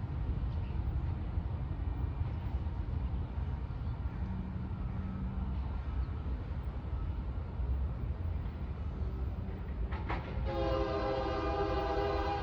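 Steady low rumble of a train, then about ten seconds in a locomotive air horn sounds one long chord-like blast.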